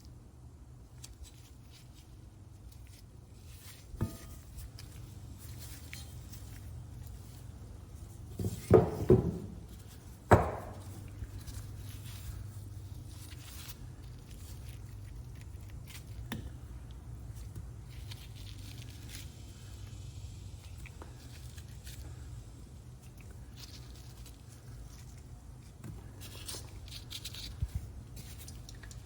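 A steady low hum with a handful of knocks and clatters of things being handled, the loudest a short cluster about nine seconds in followed a second later by one sharp knock.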